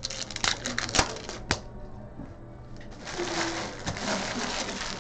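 Trading card packs and cards being handled on a table: a few sharp clicks and taps, then about three seconds in a longer crinkling rustle of pack wrappers.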